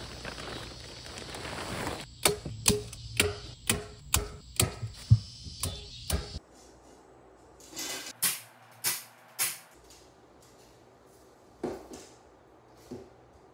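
Black plastic sheeting crinkling, then a string of about ten sharp clicks or snaps, roughly two a second, followed by a few fainter clicks spaced further apart.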